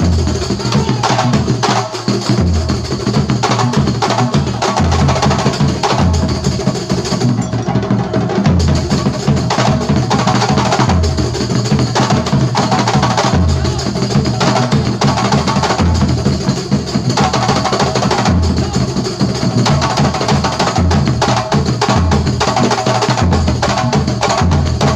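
Kuntulan ensemble of terbang frame drums playing a dense, driving rhythm, with deep bass-drum beats underneath.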